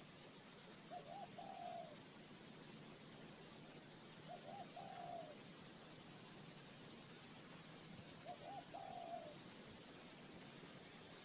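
Spotted dove cooing faintly, three calls about three and a half seconds apart, each a quick double note followed by a longer falling coo.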